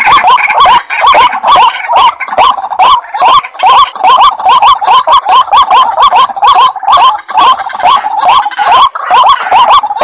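White-breasted waterhens (ruak-ruak) calling loudly in the swamp. The calls are a rapid, unbroken run of hooked notes, about three a second, the kind of territorial chorus used as a lure to draw the birds out of cover.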